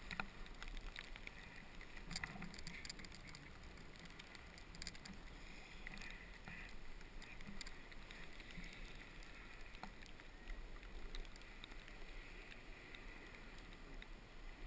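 Snowboard sliding and turning over snow, a faint steady hiss with scattered scrapes and clicks, picked up by a helmet-mounted camera.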